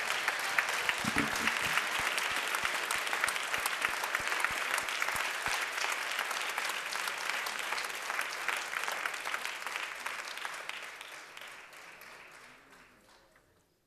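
Congregation applauding steadily, the applause dying away over the last few seconds.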